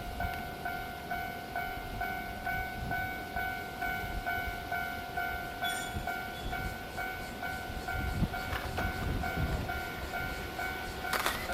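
Japanese railway level-crossing alarm ringing a steady, evenly repeated electronic tone about twice a second, with the low rumble of a train on the line building in the second half.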